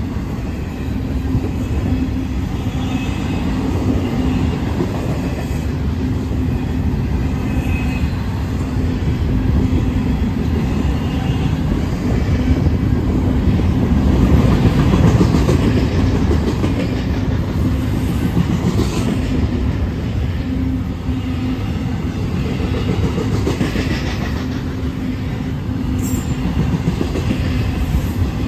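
Double-stack intermodal well cars rolling past close by: a steady rumble and clatter of steel wheels on rail, loudest about halfway through.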